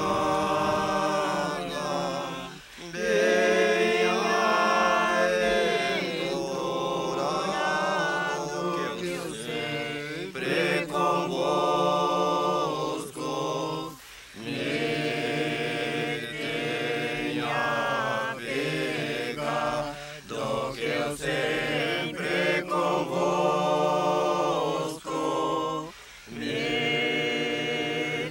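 Vocal music: chant-like singing in long held phrases, with short breaks between phrases.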